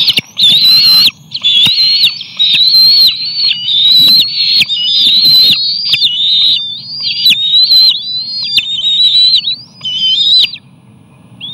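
Nearly grown bald eagle eaglets giving food-begging calls: a near-continuous run of shrill, high whistling squeals. The calls break off about ten and a half seconds in.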